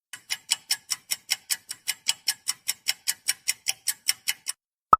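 Countdown timer sound effect ticking quickly and evenly, about five ticks a second, for the guessing time. The ticks stop about a second before the end, and one short sharp sound follows near the end.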